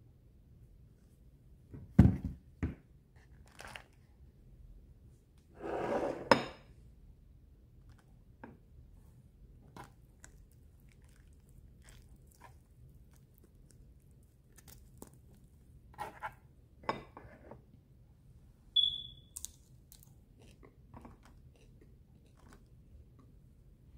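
Eating sounds picked up close: quiet chewing and fingers handling fried milkfish and rice, with scattered small clicks. A sharp knock comes about two seconds in, and a brief noisy crunch around six seconds.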